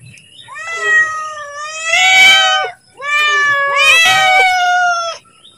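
Domestic cat meowing loudly for food: two long, drawn-out meows, each about two seconds, the first swelling louder toward its end.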